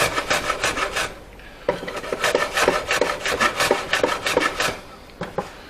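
Hand tool trimming the wooden tenon of a repaired locker door, rasping across the wood in rapid short strokes, several a second. The strokes come in two runs with a short pause about a second in, and they stop near the end.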